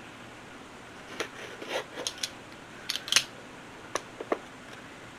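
Scattered short clicks and crinkles of a small electrical item's packaging being handled and opened by hand, the sharpest a little past three seconds in.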